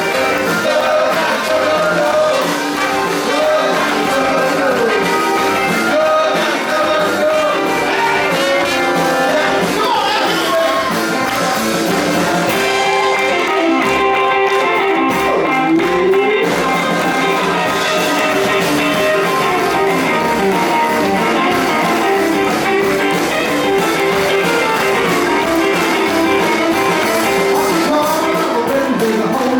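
A band playing 1950s-style rock and roll, with guitar and a singer.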